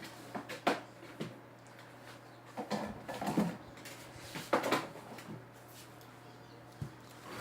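Light knocks and clicks of plastic slime pots being handled and put away, in a few short clusters over a steady low hum.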